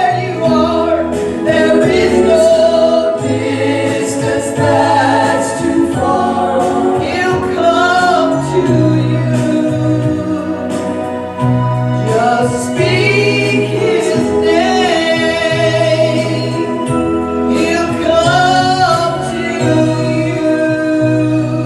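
Gospel music: a choir and lead voices singing over a steady bass accompaniment.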